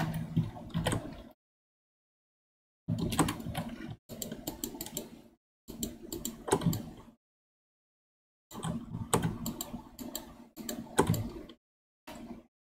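Several short bursts of rapid computer keyboard clicking, each lasting one to two seconds and cutting in and out abruptly, with a faint low hum under each burst.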